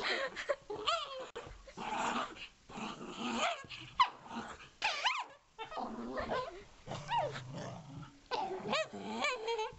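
Small dog yelping over and over in short, high, arching cries, with bouts of growling, at a hand playing with it.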